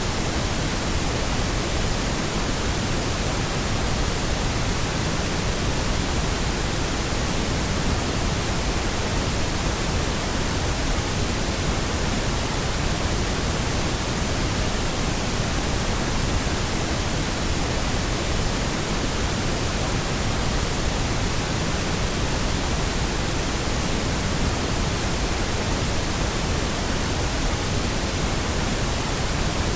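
Steady, unchanging pink noise: an even hiss spread across all frequencies, generated as a sleep and sound-masking signal.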